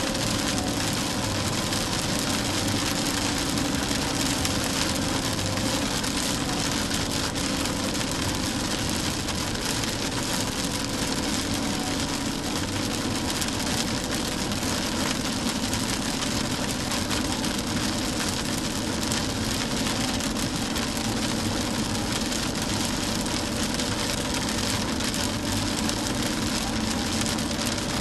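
Car driving in heavy rain, heard from inside: a steady hiss of rain and wet road noise, with the engine running underneath.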